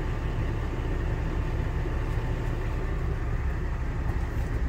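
Coleman Mach rooftop air conditioner running steadily while cooling, a constant rush of blowing air over a low hum, heard from inside the truck's sleeper cab.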